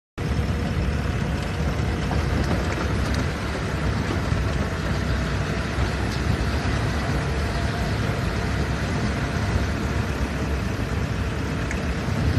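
Steady road-traffic noise: motor vehicle engines running with a deep rumble. It starts abruptly just after the start.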